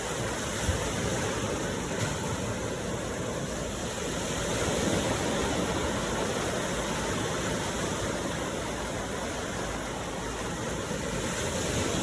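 Ocean surf: a steady rushing wash of water that swells gently about halfway through and again near the end.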